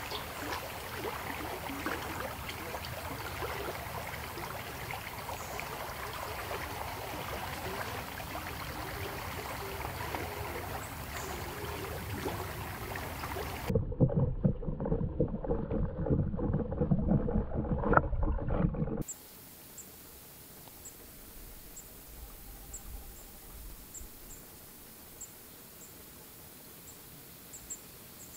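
A broad forest stream flowing, an even rush of running water. After a sudden cut, about five seconds of louder, muffled rumbling, then a quiet stretch with faint high ticks that come more often near the end.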